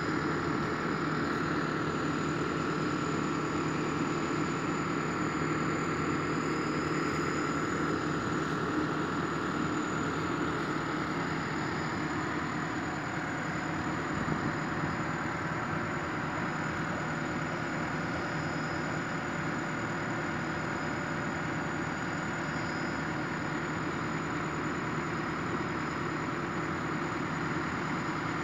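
Excavator's diesel engine idling steadily, with a thin high-pitched whine running over it.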